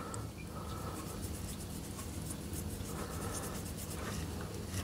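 Paintbrush stroking paint onto a small carved basswood figure: faint, quick scratchy brush strokes over a steady low hum.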